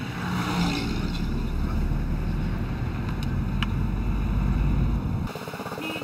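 Vehicle engine and road noise, a steady low rumble, heard from a car driving along a mountain road. It cuts off abruptly about five seconds in.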